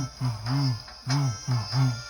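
Children's backing music: a bouncy line of short low notes that each bend up and back down, about two a second, with light jingly percussion hits.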